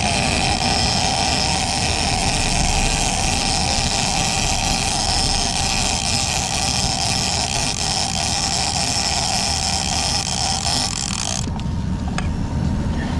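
Shimano Tiagra lever-drag big-game reel whirring steadily, high-pitched, as line runs through it during a fish fight, cutting off suddenly near the end. A steady low rumble sits underneath.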